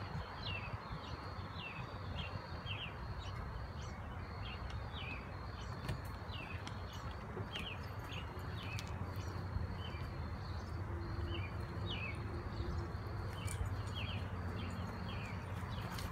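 A chorus of small animals chirping: many short falling chirps, about one or two a second, over a high trill repeated in short pulses. A low rumble runs underneath.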